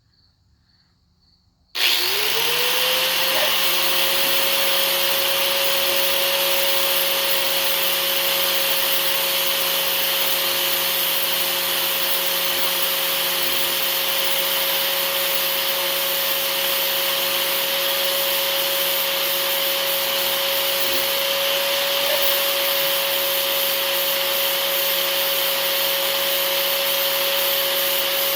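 Electric right angle grinder switched on about two seconds in, spinning up quickly to a steady high whine and running on evenly.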